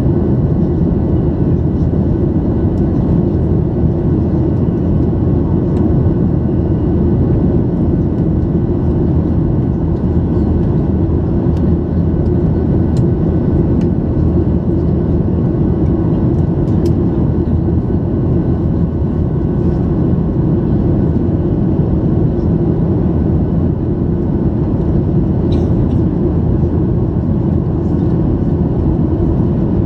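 Steady engine and airflow noise inside the cabin of a Boeing 737-800 in flight, with its CFM56-7B engines running. It is a loud, even rumble with a few faint steady tones above it and a few faint clicks.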